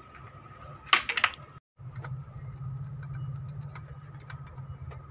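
A short burst of metallic clinks and rattles about a second in, from parts and tools being handled while the cooling fan is fitted in the engine bay, then a steady low hum with scattered light ticks.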